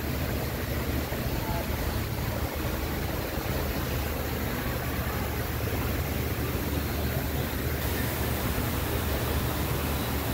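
Wind noise on the phone's microphone: a steady low rumble under a hiss, which brightens a little about eight seconds in.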